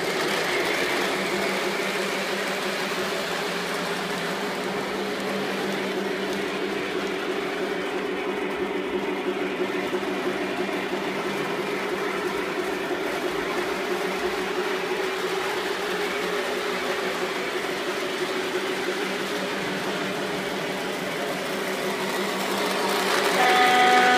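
Lionel O-gauge Santa Fe passenger train with F-unit diesels running on the layout track: a steady electric-motor whirr and wheel rumble with a constant hum. It grows louder, with several higher steady tones, about a second before the end as the train comes close.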